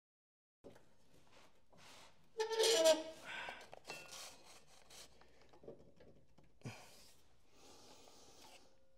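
Hand work on a lawn tractor's mower deck: the cutting blade being turned by hand and a blade-height gauge being set under the deck. There is one louder, squealing scrape about two and a half seconds in, followed by a few light rubs and taps.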